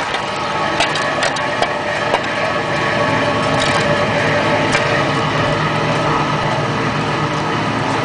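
A machine running with a steady hum of several pitches, broken by a few short sharp clicks of a shovel striking the furnace's metal base and the ground as burning material is raked out.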